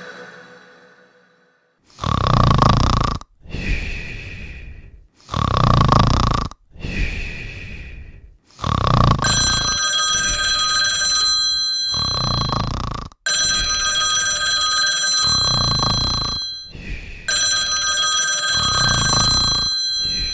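A man snoring loudly in slow, regular cycles, a rough loud intake followed by a softer fading breath out. From about nine seconds in, a telephone ringtone rings over the snoring in long rings with short breaks.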